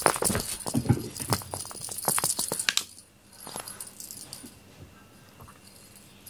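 Cats at play with a feather wand toy: quick jingling and rattling with soft thuds as a cat pounces and bats at it, for about three seconds. Then it quiets to a few faint clicks.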